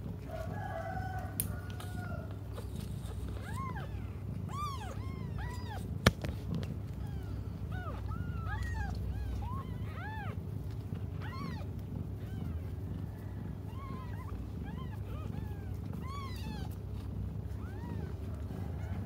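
Newborn kittens mewing: many short cries, each rising and falling in pitch, repeated irregularly while they nurse. A single sharp click about six seconds in.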